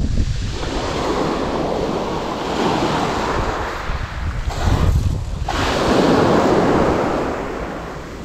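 Small surf breaking and washing up a gravel beach, with wind buffeting the microphone. The wash swells about five seconds in and eases off near the end.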